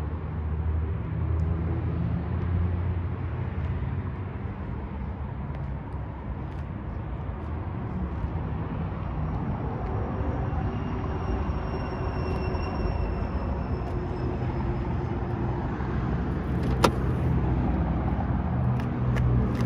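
1952 Jaguar XK120's 3.4-litre inline-six on twin side carburettors idling steadily. A single sharp click sounds near the end.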